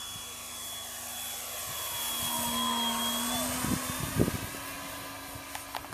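FMS P-40 Warhawk RC model's electric motor and propeller whining as it flies past, building to a peak about three seconds in and then fading. There are a few low thumps on the microphone about four seconds in.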